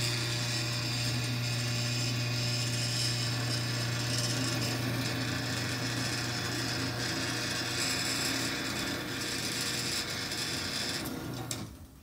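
Chain-and-cable drive garage door opener running with the trolley disconnected from the door: a steady motor hum as the chain drives the trolley along the rail, stopping near the end as the trolley reaches its limit.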